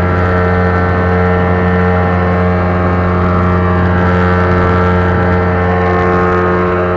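Engine running steadily at constant speed, a loud even drone with a strong low hum.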